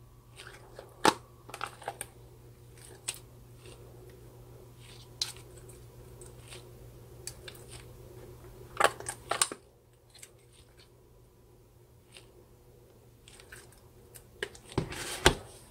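Old clear slime squeezed and pressed by hand around squishy toys in a plastic tub, giving scattered sticky pops and crackles. The loudest clusters come about a second in, around nine seconds, and near the end.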